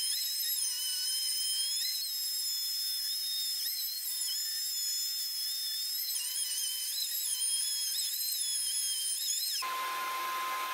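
Handheld electric router cutting across end-grain birch log slices as it is pushed along a sled to flatten the tabletop. Its high whine wavers and dips in pitch as the bit loads up in the wood. Near the end the sound changes to a steadier, fuller noise with a steady hum.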